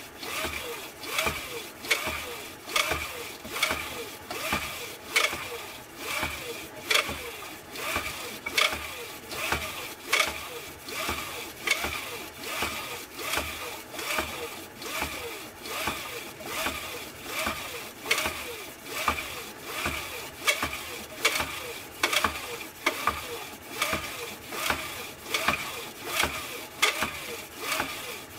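Wooden pump drill being pumped to spin a 3D-printed generator: a sharp knock at each stroke, about one and a third a second, with a whir between the knocks whose pitch wavers as the spindle spins one way and then the other.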